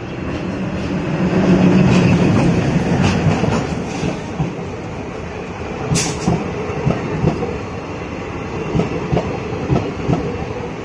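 Indian Railways WDM-3A diesel locomotive passing close on the next track, its engine loudest about two seconds in. Its passenger coaches then roll by with a run of wheel knocks over the rail joints and a sharp clank about six seconds in.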